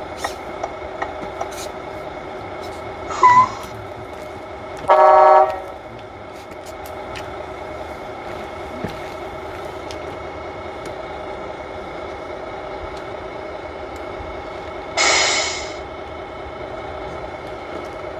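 Tamiya Scania 770S model truck's sound unit playing a steady simulated V8 idle through its small speaker. There is a short sound about three seconds in, a loud horn blast of about half a second about five seconds in, and a loud hiss of under a second about fifteen seconds in.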